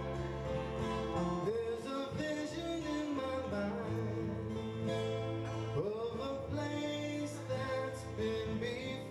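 A man singing to his own strummed twelve-string acoustic guitar, holding sung notes and sliding between pitches.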